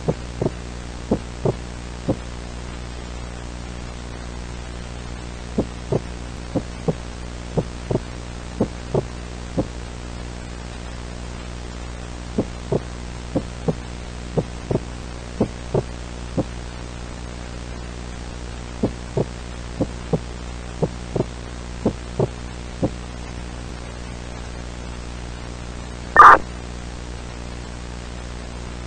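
Steady low droning hum with a faint hiss, broken by runs of paired heartbeat-like throbs about once a second. Near the end comes a single very loud, short harsh burst.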